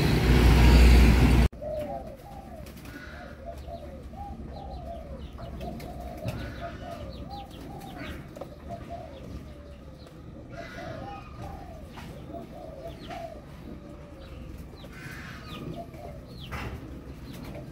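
Street traffic noise of a van and motorbikes for about the first second and a half, cutting off suddenly. Then many caged doves cooing, their rolling coos overlapping one another, with a few faint higher chirps.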